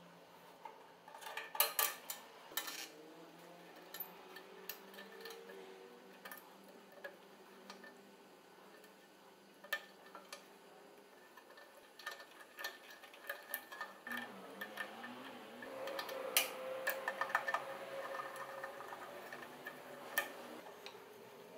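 Light, irregular clinks and taps of small metal parts and hand tools being handled, with a cluster of sharper clicks about two seconds in and another around sixteen to eighteen seconds.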